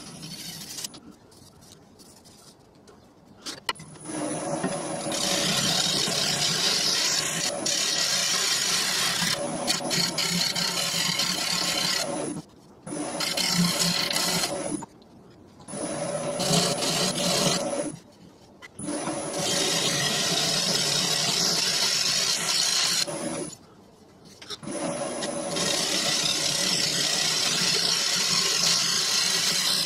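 Turning tool cutting the outside of a wet ash bowl blank spinning on a lathe: a loud, steady cutting noise in several long passes with short breaks between them. The first four seconds are quieter, before the cutting starts.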